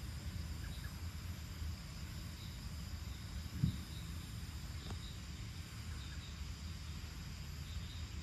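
Evening outdoor ambience: a steady low rumble with faint, scattered insect chirps. A single short low thump comes about three and a half seconds in.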